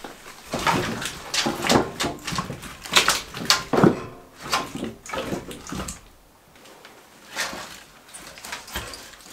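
Firewood being handled and stacked by hand: split sticks and logs set down with a run of wooden knocks and clatters, a short lull about six seconds in, then dry twigs being laid on top.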